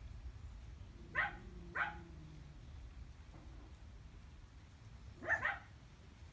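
A dog barking: one bark about a second in, a second bark just after, then a quick double bark near the end.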